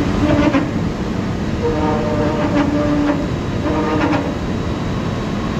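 Overhead grab crane working as its clamshell bucket closes: a steady, loud mechanical rumble with whining tones that come and go about three times.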